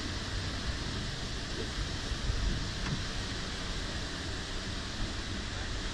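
Steady rushing noise with a low rumble: roadside street ambience with motorbike traffic.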